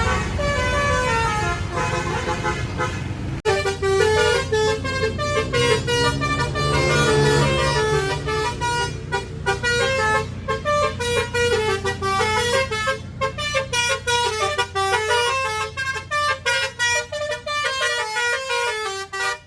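Bus 'telolet' Basuri musical horn playing a fast melody of short, quickly changing notes, over a steady low engine rumble. The tune breaks off sharply about three and a half seconds in and another tune follows.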